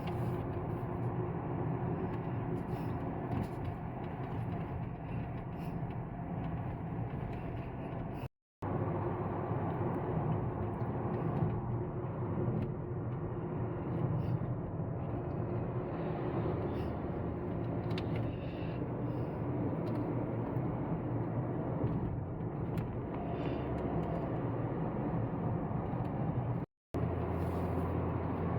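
Vehicle driving along a road: a steady engine hum with road noise and faint knocks. The sound cuts out briefly twice, once about a third of the way in and again near the end.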